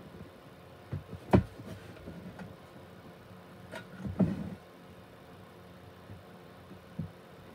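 A few sharp taps and knocks from handling glass and metal lab gear (a grain jar, a petri dish and a scalpel) during a grain-to-agar transfer. The loudest tap comes about a second and a half in.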